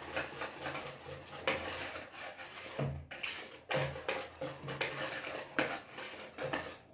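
Balloon whisk stirring a thick cream mixture in a mixing bowl: repeated scrapes and light taps against the bowl, a few a second, irregular.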